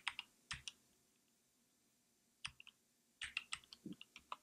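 Typing on a computer keyboard: a few keystrokes, a pause of nearly two seconds, then a quicker run of key clicks near the end.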